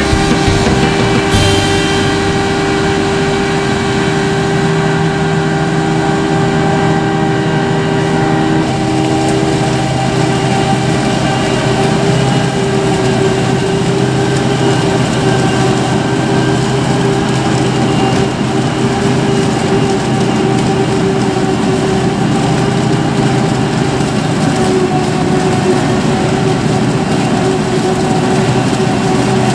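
Krone Big X 700 forage harvester chopping maize: a steady machine drone of its engine and chopper drum, with a constant whine running through it. A tractor pulling a silage trailer runs alongside it in the second half.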